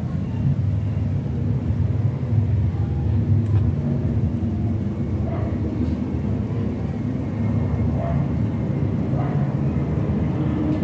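A steady low rumble with a few faint clicks.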